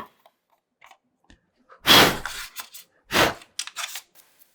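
Plastic body of a drone being handled and worked apart by hand: two short scraping rustles, then a few light clicks.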